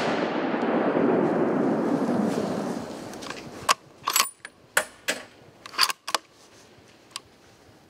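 The rolling echo of a gunshot fading away over about three seconds, followed by a shot white-tailed doe kicking and thrashing in dry leaves, several short crunches between about three and six seconds in.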